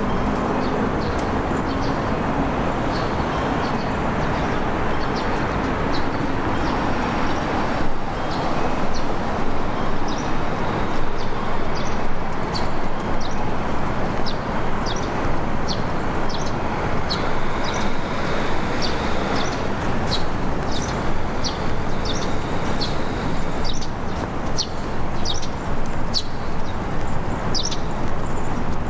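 Steady outdoor city noise with a vehicle-like rumble, and small birds chirping repeatedly from about six seconds in.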